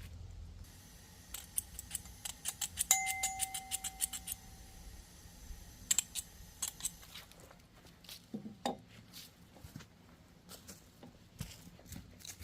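A quick run of sharp metallic clicks lasting about three seconds, with one ringing metal clink partway through, then scattered clicks and knocks.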